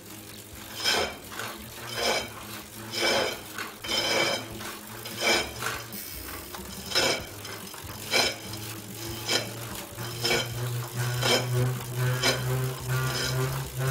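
Metallic scraping from a Tacx Neo Series trainer's motor brake, coming in a rhythmic stroke about once a second while it is pedalled. A low steady hum joins about ten seconds in. This metal noise under pedalling might come from a problem with the hub axle in the centre of the motor brake.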